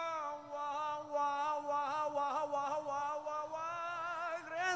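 A man singing one long held note on 'wa' into a microphone. The pitch wavers in quick ornamental turns in the middle and swells upward near the end.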